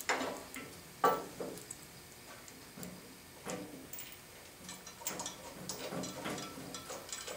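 Steel bolts and a painted steel motor bracket clinking and clicking as the bracket is fitted and the bolts are turned in finger tight by hand. A few sharp knocks, the loudest about a second in, then a run of lighter ticks.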